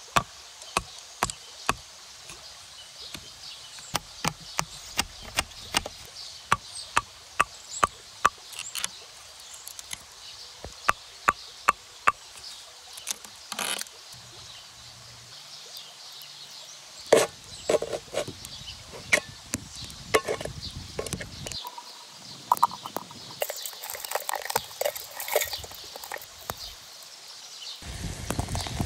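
Batoning: a wooden stick strikes the spine of a knife again and again, driving it into a green wooden stake to split it. The sharp knocks come about twice a second through the first half, then sparser, and give way to the crackle of a small fire near the end.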